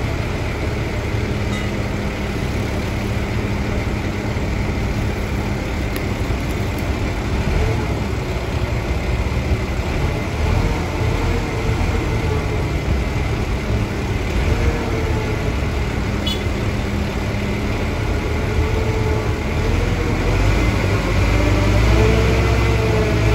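Heavy vehicle engines running with a steady low rumble, the engine pitch rising and falling near the end.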